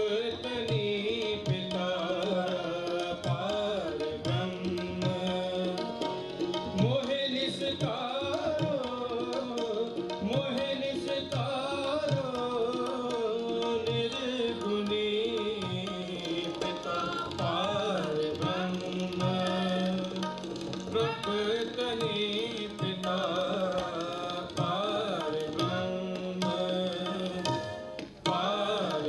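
Sikh kirtan: voices singing a hymn over harmonium and a pair of tabla, the tabla playing a steady, busy rhythm.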